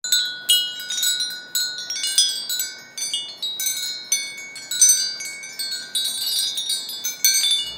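Wind chimes ringing: many irregular, overlapping strikes of high, bright tones, each ringing on and dying away, several times a second.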